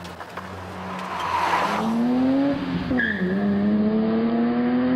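Car pulling away hard, with a rush of tyre noise as it sets off. The engine revs up, drops at a gear change about three seconds in, then revs up again.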